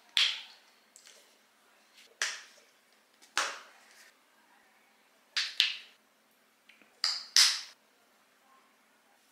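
Sunscreen tube being squeezed and its cap handled: a series of short, sharp squirts and clicks, some in quick pairs, each dying away within about half a second.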